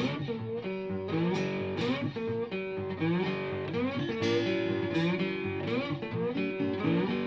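Background music: a guitar playing single plucked notes and chords.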